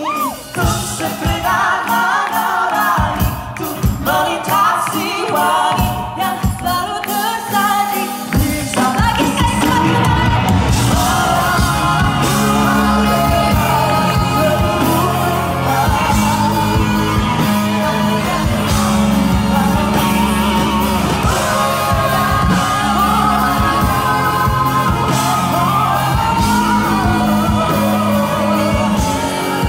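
Live pop band with a female and a male singer sharing a duet. Sparse backing at first, then the full band comes in with bass and drums about eight seconds in.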